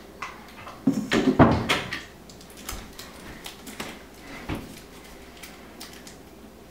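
A plastic yogurt tub being handled and knocked on a kitchen counter. A louder clatter comes about a second in, then a few single knocks.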